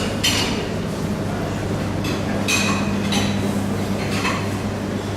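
Plates and cutlery clinking and clattering in a dining room, several short knocks with a ringing tail, over a steady low hum.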